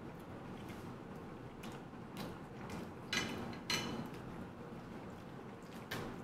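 Close-up chewing and small eating noises, with a few short crisp crackles, twice about three seconds in and once near the end, as a leaf of lettuce is picked up and handled for wrapping.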